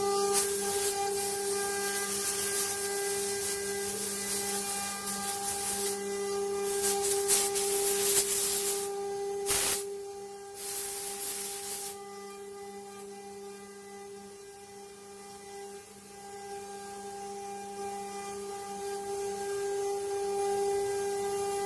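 Wood-carving CNC router running, its spindle giving a steady whine while the bit cuts wood with a loud hissing rasp. The cutting noise surges several times, then drops away about halfway through, leaving mostly the spindle's whine.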